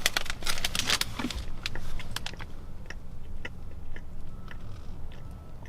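Crinkling of a plastic cookie wrapper, then biting into and chewing a soft chocolate chip cookie, with scattered small clicks.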